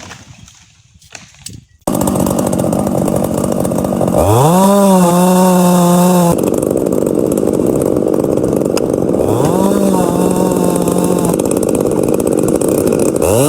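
Two-stroke chainsaw running, coming in abruptly about two seconds in. It is revved up to full throttle three times, each time with a sharp rising whine that holds for about two seconds before dropping back.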